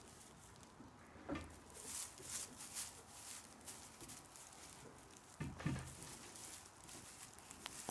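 Goat kids' small hooves pattering and rustling on loose straw bedding as they step about, with a couple of louder bumps, one about a second in and one near six seconds.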